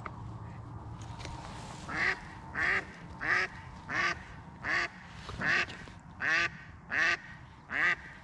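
A live decoy hen duck quacking a long, evenly paced series of about nine loud quacks, one every 0.7 seconds or so. This is the calling that draws drakes in to the blind.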